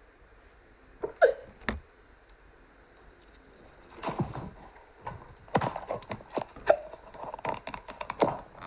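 A woman hiccupping: a sharp voiced hic about a second in and another near seven seconds. From about four seconds on, a quick run of clicks and taps.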